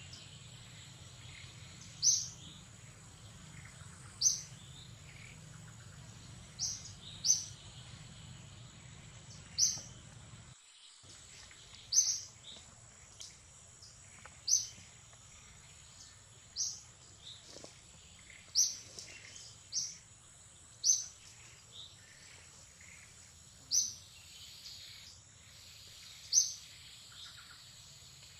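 A bird calling repeatedly in forest, one short high chirp every one to three seconds, over a steady high-pitched hum.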